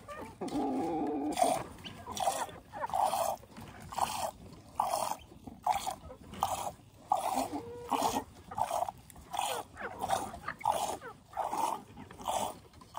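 Hand-milking a sheep: streams of milk squirting into a jar in a steady rhythm, about three squirts every two seconds. A short animal call sounds in the first second.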